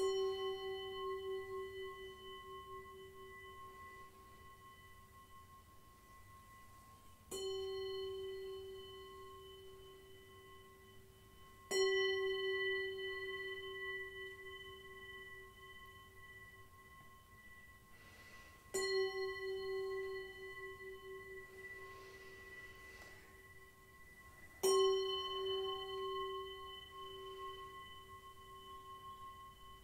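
Tibetan singing bowl struck five times, a few seconds apart. Each strike rings out with a pulsing hum and several higher overtones that slowly fade.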